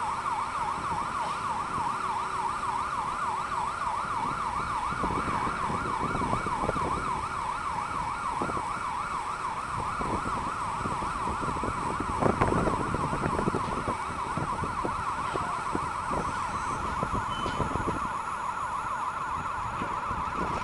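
A gantry crane's travel warning siren sounds while the crane is travelling: a fast warbling tone that rises and falls about four times a second. Low rumble and scattered knocks sit beneath it.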